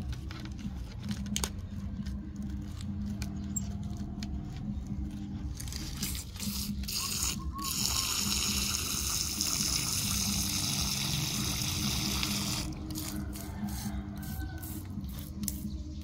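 Water hissing from a brass sprayer nozzle as a fine jet wets the soil of a potted mango plant, steady for about five seconds from roughly eight seconds in. Before it, light scattered ticks and crackles.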